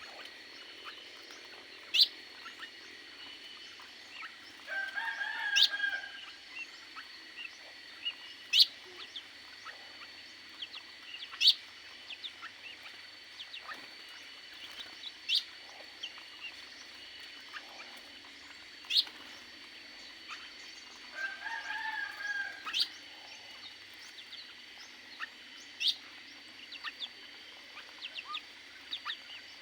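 Aviary birds calling: sharp single chirps every two to three seconds, with two longer, fuller calls about five seconds in and again past twenty seconds.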